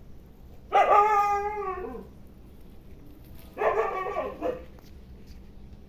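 Two drawn-out, pitched animal calls, each about a second long, the first just after the start and the second past the middle.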